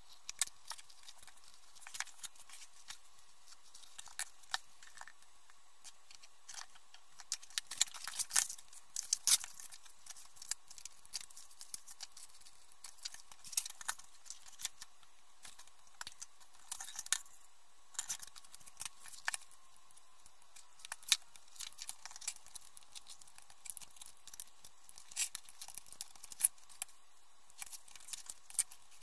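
Paper and card being handled during crafting: scattered rustles, crinkles and small sharp clicks, with a faint steady hum underneath.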